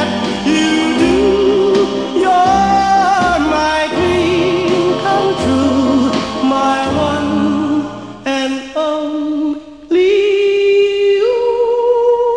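Background music: a slow love song, a voice singing long notes with vibrato over accompaniment. The music briefly drops quieter about two-thirds of the way through, then comes back on a long held note.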